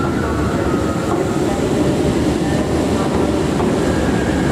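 Class 314 electric multiple unit moving slowly along a station platform: a steady rumble of wheels on rails with a few faint steady tones.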